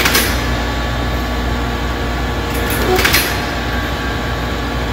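Pneumatic drilling machine running with a steady hum, broken by two short hisses of air about three seconds apart.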